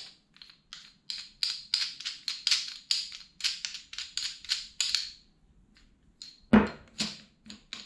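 Threaded lower mount being spun by hand down the threads of a QA1 coilover shock body, making light metal clicks about four times a second for around five seconds. About six and a half seconds in comes a single loud thunk, then a lighter knock.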